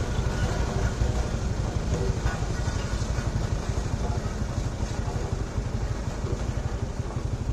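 Road roller's engine running steadily.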